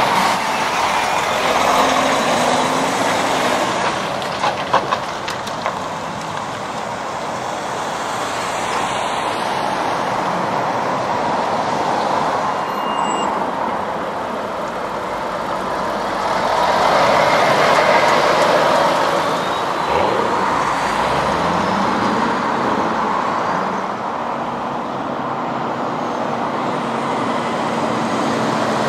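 Road traffic with lorries passing: a steady rush of tyre and engine noise that swells as a vehicle goes by about two-thirds of the way through. A few sharp clicks sound around five seconds in.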